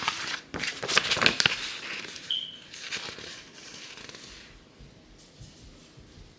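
Light clicks and rattles of small hard objects being handled, densest in the first second and a half, followed by quieter scattered handling noise and one brief high squeak about two seconds in.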